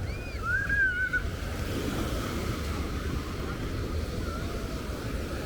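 Ocean surf washing on a beach, heard as a steady rush, with wind buffeting the microphone. A brief, high, wavering call rises over it about half a second in.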